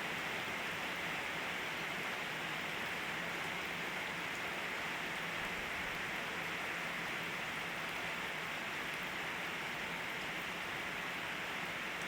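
Steady rain falling in a storm, an even, unbroken hiss.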